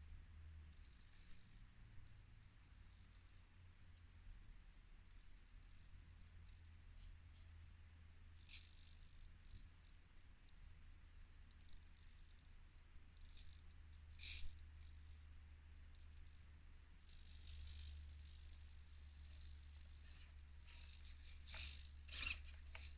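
Axial SCX24 micro RC crawler working over rocks: faint, scattered rattles and clicks from its plastic parts and tyres, more of them near the end, over a low steady hum.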